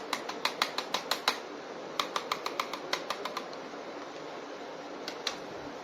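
Two quick runs of light, sharp clicks and taps, with two more near the end, from a plastic action figure being handled.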